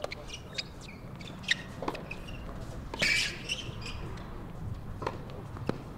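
Tennis rally on a hard court: sharp pops of racket strikes and ball bounces, irregularly spaced about half a second to a second apart, with a short hissing scuff about three seconds in.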